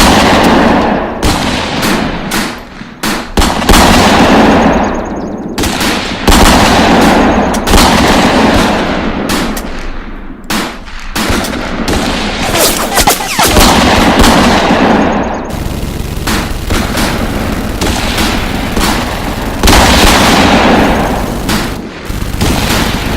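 Heavy gunfire sound effects: rapid automatic machine-gun fire mixed with single shots, packed closely together, with echoing tails that swell and fade every couple of seconds.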